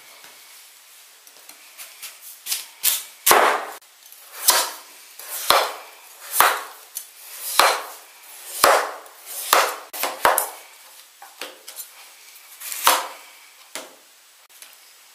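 Kitchen knife chopping through raw pumpkin and striking a plastic cutting board: a run of sharp, separate knocks at an uneven pace of roughly one a second.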